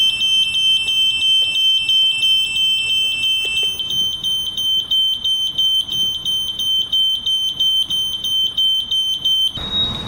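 Gas detector and conventional fire alarm panel sounding in alarm after gas has been sprayed at the detector: high-pitched piercing electronic alarm tones with a rapid pulse. Two tones sound together at first, and the lower one stops about a third of the way in; shortly before the end the sound switches to a single slightly higher tone.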